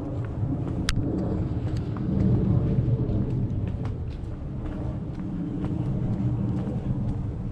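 Low, fluctuating rumble of wind buffeting the microphone of a camera carried on foot.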